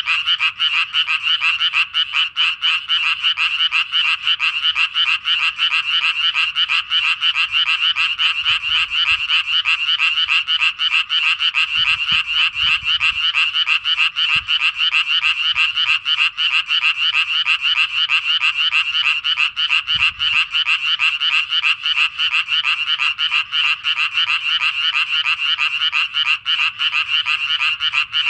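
A dense chorus of Japanese tree frogs calling without a break, many rapid pulsed calls overlapping. These are males' breeding calls.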